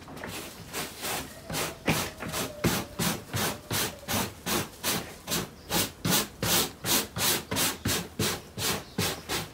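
A stiff brush scrubbed back and forth over a car headliner board, scouring off the old deteriorated foam backing. The strokes come in a steady rhythm of about three a second from about a second in.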